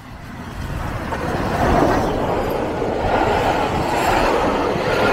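A steam-hauled passenger train passing close by: the sound builds over the first two seconds as the locomotive comes level, then holds as a steady rumble of the coaches' wheels on the rails.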